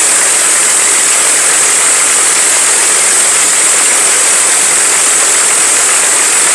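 Rolls-Royce Griffon V12 aero engine of a race-modified P-51 Mustang running steadily and loudly on a ground test run of the newly fitted replacement engine.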